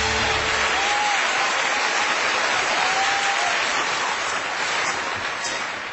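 Studio audience applauding and cheering, with a few shouts rising above the clapping. It eases off slightly near the end.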